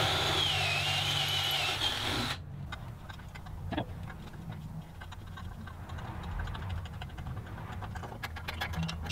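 Cordless drill running as it bores a hole into an aluminum plate, with a wavering whine, for about two seconds before it stops suddenly. After that comes the quieter tapping of the hole by hand with a T-handle tap wrench: faint ticks and scrapes of the tap cutting threads.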